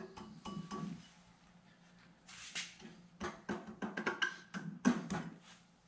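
Metal crankshaft pulley being worked onto the crankshaft snout of a VW air-cooled engine: a brief rustle, then a quick run of clicks and knocks from about three seconds in as it is pushed and seated.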